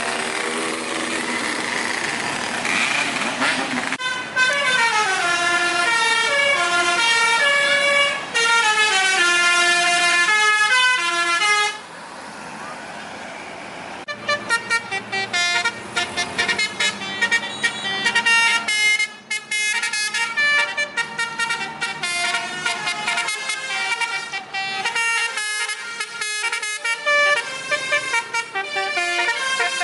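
Tour bus telolet horn, a multi-tone musical air horn, playing tunes in quick stepped notes. There is a short break about twelve seconds in, then fast pulsing horn notes.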